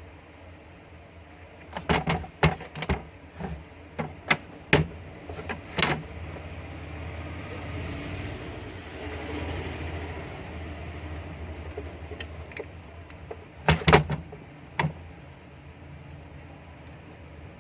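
Back cover being fitted onto a repaired exhaust fan motor: a run of sharp knocks and clicks of parts being seated and handled, then a stretch of softer rustling, then a second short cluster of knocks.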